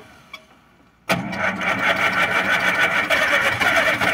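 Zetor Super 50 tractor's four-cylinder diesel engine on a cold start after winter: quiet at first, then about a second in it comes in suddenly loud and runs steadily, smoking from the exhaust.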